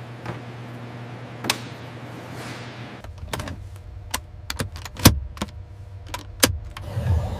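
A steady low hum with a couple of light clicks, then from about three seconds in a run of about eight sharp clicks over a low rumble, the loudest about two seconds later: switches and buttons on an attack helicopter's cockpit weapons control panel being pressed.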